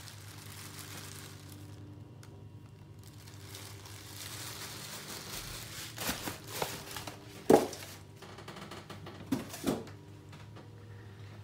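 Plastic bag and packing rustling as a resin statue is unwrapped, then a few sharp knocks and thumps as it is handled and set down on a wooden table, the loudest about two-thirds of the way in.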